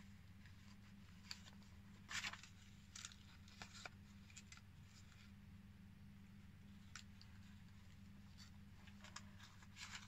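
Paper and card pages of a handmade junk journal rustling and brushing as they are turned and a flap is folded, in short scratchy bursts with the loudest about two seconds in, over a low steady hum.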